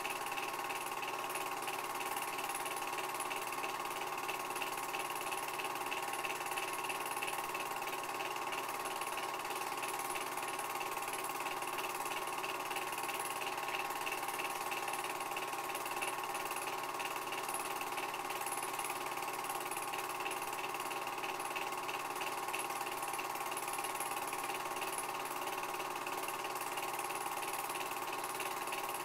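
Movie projector running with a steady mechanical whir that does not change.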